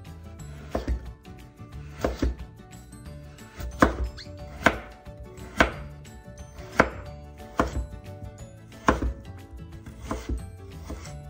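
Chef's knife slicing a carrot on a bamboo cutting board: separate sharp knocks of the blade hitting the board, roughly one a second at uneven spacing, as the carrot is cut into slabs and then thin strips.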